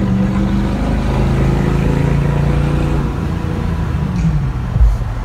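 A GMC Denali's 6.0-litre V8 pulling hard under acceleration, heard from inside the cabin. The engine note holds strong, then falls away about three seconds in as the throttle is eased off.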